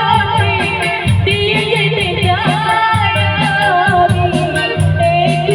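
A Bengali song with a sung melody over a steady, bass-heavy beat, played loud through a large PA speaker system with subwoofers and line-array tops.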